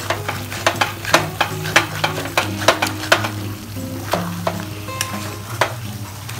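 A metal spatula stirs fish head curry with potatoes in a metal kadai over a steady sizzle of frying. It clinks and scrapes sharply against the pan many times, most often in the first half.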